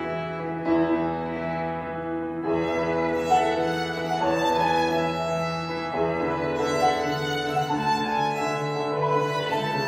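Violin and grand piano duo playing: the violin carries a melody of long bowed notes over the piano accompaniment.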